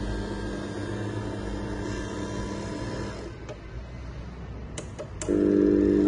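LiftMaster garage door opener motor humming, stopping about three seconds in. A few sharp clicks follow, and just after five seconds in the motor starts up again, louder.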